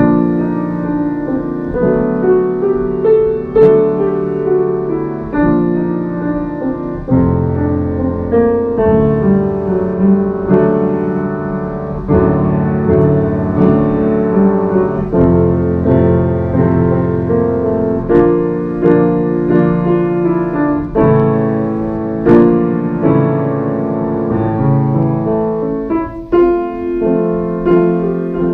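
Piano music playing, slow chords changing every second or two.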